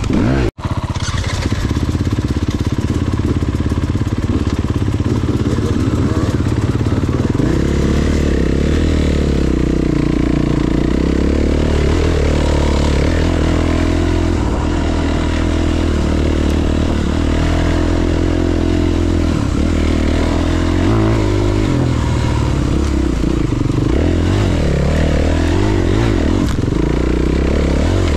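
Honda CRF300 enduro motorcycle engine running under way, its pitch rising and falling as the throttle is worked. The sound cuts out for an instant about half a second in.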